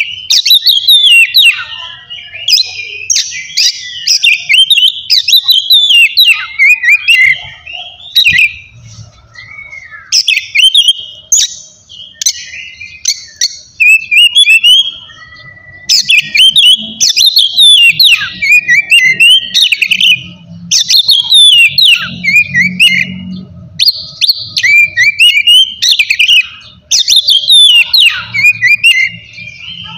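An oriental magpie-robin (kacer) sings loudly in full open song: fast, varied runs of clear whistles and harsh scratchy notes, delivered in bursts with short pauses between them.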